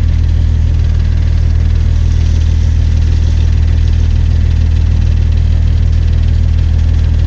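Fishing boat's engine idling steadily, a continuous deep hum.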